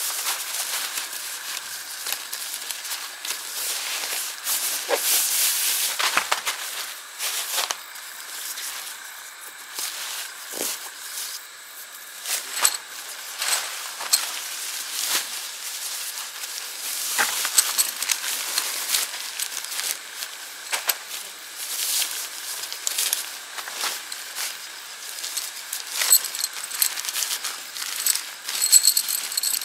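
Rustling and crinkling of a 3F UL GEAR Lanshan 1 ultralight tent and its stuff sack being handled and unpacked. Near the end come several light metallic clinks, typical of the aluminium tent pegs in their bag.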